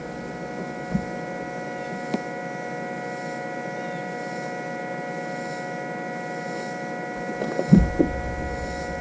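A steady electrical hum made of several fixed tones, with a soft knock about a second in, another about two seconds in, and a louder cluster of thumps on the boat deck near the end.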